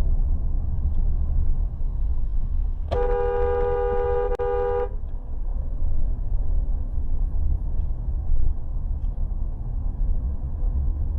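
A car horn sounds once, held for about two seconds, starting a little under three seconds in, with two notes together. Under it runs the steady low rumble of a car driving, as heard from inside the car.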